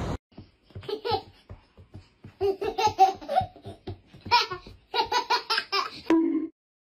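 A toddler laughing and giggling in many short, high-pitched bursts, loudest around the middle. Near the end a short low musical note comes in.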